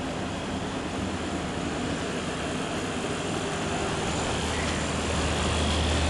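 Fujitsu window air conditioner with a rotary compressor running in heat-pump mode: a steady rush of fan air over a low compressor hum that grows louder about four seconds in. It is blowing only about 25 degrees of heat.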